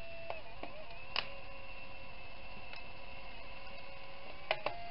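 Fujifilm Instax Mini 9 instant camera firing its shutter with a sharp click, then its motor running with a steady whine for about three seconds as it ejects the film pack's dark cover sheet. Two quick clicks come near the end.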